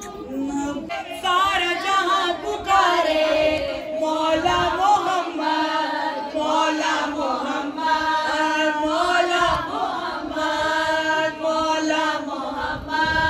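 Women's voices chanting devotional verses together at a milad, with long held notes.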